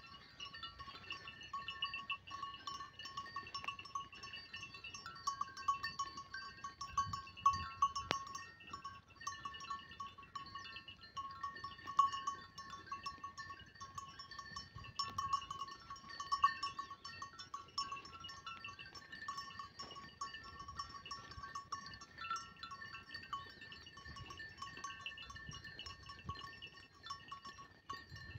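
Grazing flock of sheep and goats, with occasional bleats over a steady high ringing.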